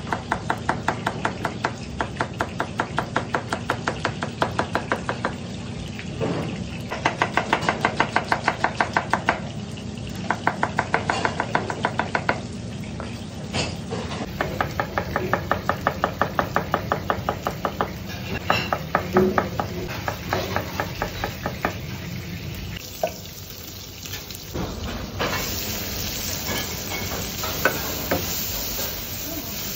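Kitchen knife slicing green pepper and onion on a plastic cutting board: rapid, even strokes in several runs with short pauses between. Near the end the sliced vegetables sizzle in a frying pan.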